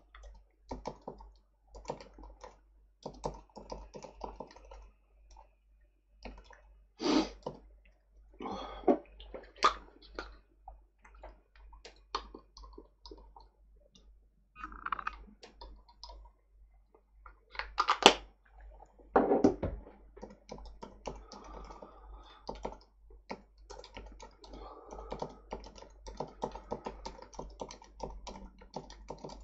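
Typing on a computer keyboard: runs of quick key clicks with short pauses between words, and a few louder thumps, the loudest about two-thirds of the way through.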